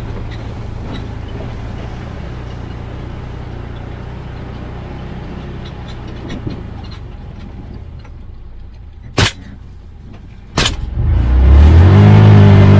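Can-Am Defender side-by-side engine running steadily at low speed, then two suppressed shots about a second and a half apart from a .308 AR-10 fitted with a Rugged Razor suppressor. Right after the shots the engine revs up loudly as the vehicle accelerates.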